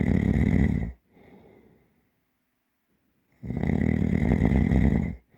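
A person snoring deeply and heavily. A loud snore ends about a second in and is followed by a softer breath. After a quiet pause, another loud snore lasting nearly two seconds starts about three and a half seconds in.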